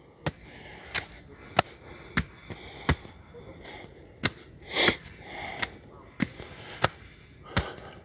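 Footsteps of a hiker climbing hard trail steps: short sharp steps about three every two seconds, with one longer rustling scuff a little past halfway.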